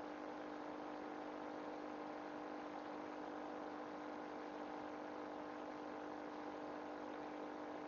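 Steady electrical hum with a faint hiss underneath, one even tone with overtones that never changes.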